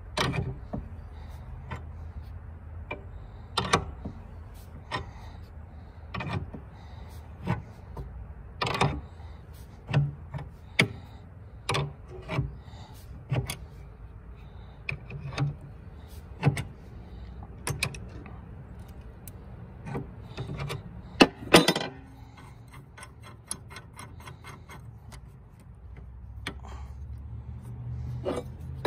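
Irregular metal clicks and clinks of a wrench being fitted to and swung on the forcing screw of a SeaStar steering-arm puller, slowly pressing the steering arm off the cylinder's collar. The loudest clanks come a little past two-thirds of the way through, over a steady low hum.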